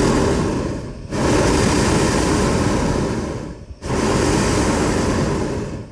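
Hot-air balloon's propane burner firing in three roaring blasts that stop abruptly: one ends about a second in, and two more of about two and a half seconds each follow with short gaps between them. The burns come on the landing approach, checking the balloon's descent just before touchdown.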